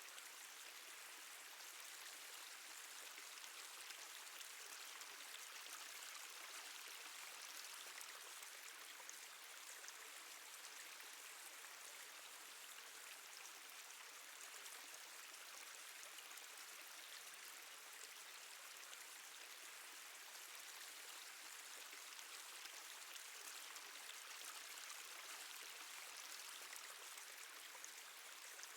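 Faint, steady water ambience: a continuous light trickle scattered with many small drips.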